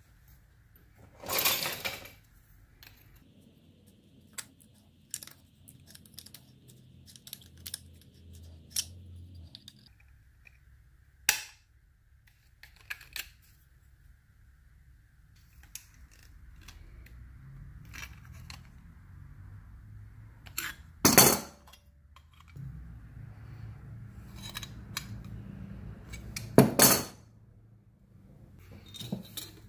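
Small copper pieces cut from pipe being handled and worked with hand tools on a wooden workbench: scattered metallic clicks and clinks, with about four louder sharp sounds spread through.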